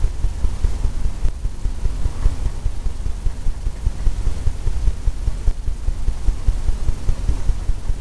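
Rapid, irregular, muffled low thumps of a fan brush tapping paint onto a stretched canvas.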